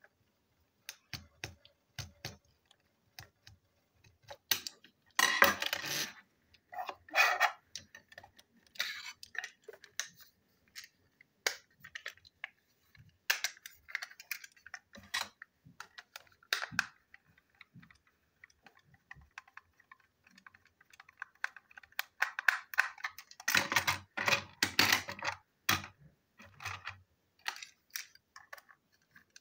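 Plastic toy train being taken apart by hand with a screwdriver: scattered small clicks and taps of the screwdriver and plastic parts. Louder clattering handling noise comes twice, for a few seconds each, about five seconds in and again near the end.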